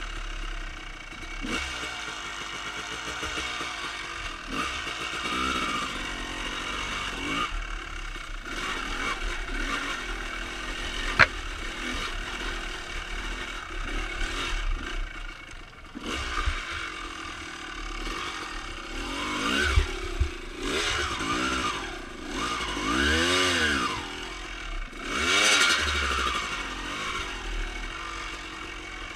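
1995 Honda CR250R's 250cc single-cylinder two-stroke engine with Pro Circuit pipes, revving up and down over and over as the dirt bike is ridden along a trail. The biggest rev swings come in the second half. A single sharp knock comes about eleven seconds in.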